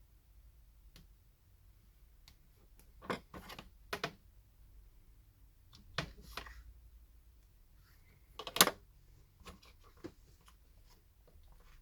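Scattered small clicks and taps of tools and phone parts being handled, in a few short clusters, the loudest one near the end.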